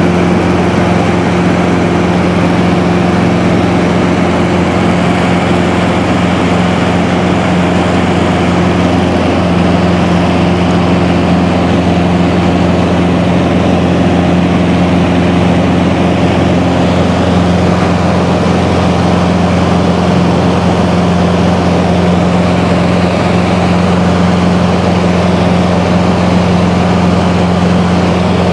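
High-wing light aircraft's piston engine and propeller running at a steady cruise, heard inside the cabin as a loud, even drone with a constant pitch.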